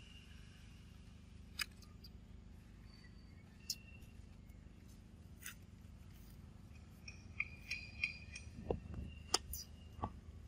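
Scattered sharp clicks and ticks a few seconds apart, coming quicker and closer together in the last three seconds, with a few short high chirps among them, over a faint steady background.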